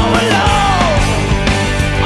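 Rock music with a steady drum beat and a lead melody line that slides down in pitch.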